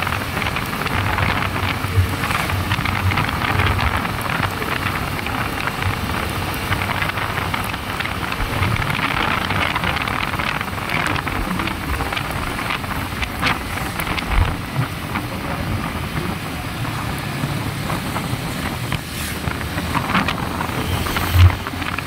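Wind rushing over the microphone and tyres hissing on a wet road from a Yamaha motorcycle cruising at speed, its engine running steadily underneath, with a few brief knocks.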